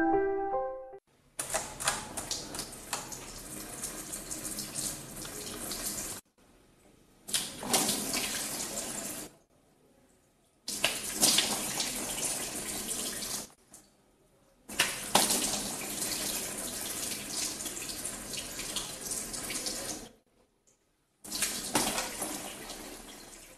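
Water running and splashing in a sink, heard in five separate stretches of a few seconds each, with sudden cuts to silence between them.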